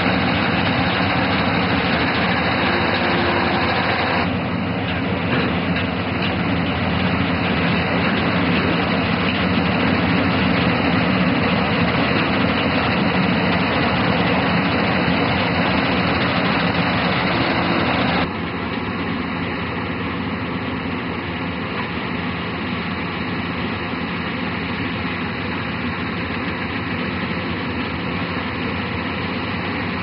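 Balkar-654 combine harvester running steadily under load while cutting wheat, a dense, even engine and machinery noise. About eighteen seconds in, the sound drops abruptly to a quieter, steady machine noise.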